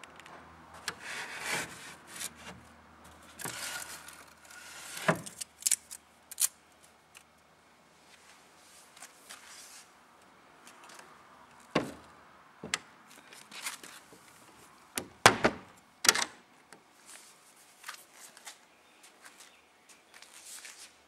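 Handling noise around a solid oak cupboard: rubbing and scraping in the first few seconds, then scattered sharp wooden knocks and clicks. The loudest knock comes about fifteen seconds in.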